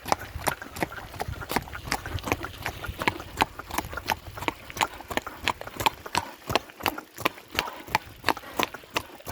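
Horse's hooves clip-clopping at a trot, a steady run of sharp strikes about four a second.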